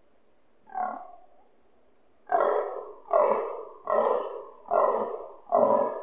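Fallow stag grunting, its rutting call: one short grunt, then a run of five grunts in steady rhythm, about one every 0.8 seconds.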